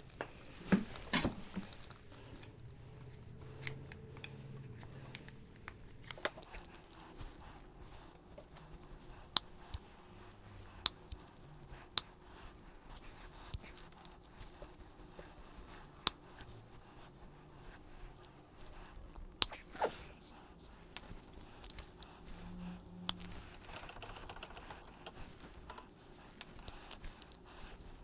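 Scattered light metallic clicks and taps of hand tools and a Yamaha Cygnus X 125 scooter's front disc brake caliper being handled and worked on with a hex wrench, the sharpest about a second in and again near the twenty-second mark.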